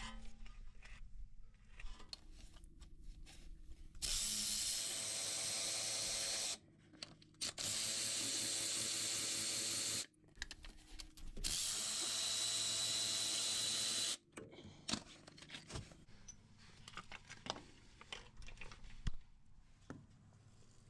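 A power tool running in three bursts of two to three seconds each, with clicks and knocks of tools and metal parts before, between and after the bursts.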